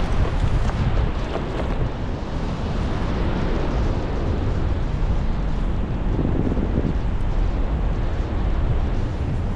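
Wind rushing over a paraglider pilot's camera microphone in flight: a steady, loud buffeting that is heaviest in the low end.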